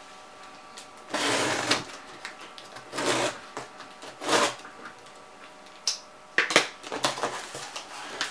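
Packing tape on a cardboard box being slit with a knife: three noisy scrapes, the first the longest, followed near the end by a run of clicks and cardboard rustling as the flaps are pulled open.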